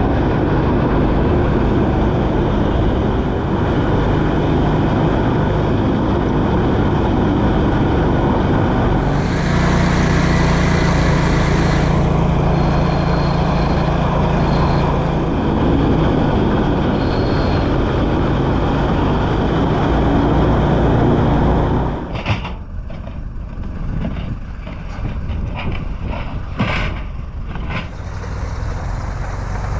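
Argo amphibious ATV engine running steadily as it drives. About 22 seconds in, the engine sound cuts away to a quieter stretch with several sharp knocks.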